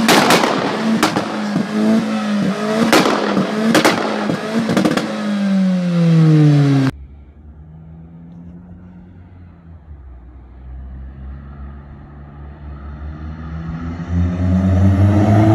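Vauxhall Corsa VXR's turbocharged four-cylinder revved hard through a loud aftermarket exhaust, with several sharp pops and bangs, the revs sweeping up and then falling away. After a sudden cut, a Corsa VXR is heard accelerating toward the listener, its exhaust growing steadily louder to a peak at the end.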